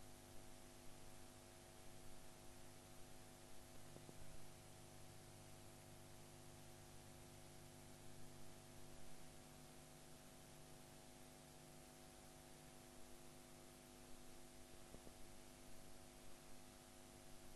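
Near silence: a faint, steady hiss with a low electrical hum. The lowest hum tone drops out about nine seconds in.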